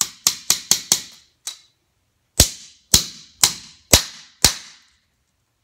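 Claw hammer driving a short concrete nail through a metal carpet gripper transition strip into a concrete subfloor. A quick run of five sharp strikes, a lighter tap, then five evenly spaced blows about two a second.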